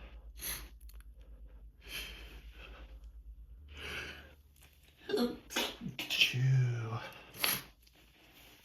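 A person with seasonal allergies sneezing: a few sharp breaths in the first four seconds, then a loud fit of several sneezes with a short voiced cry between about five and seven and a half seconds in.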